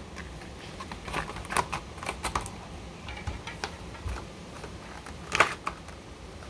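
Cardboard chainsaw packaging being handled and pulled open: irregular clicks and knocks, the loudest about five and a half seconds in.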